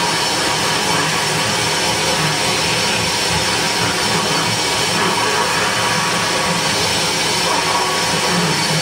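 Live noise music through stage amplifiers: a dense, unbroken wall of hiss and rumble at a steady, loud level, with no beat or clear notes.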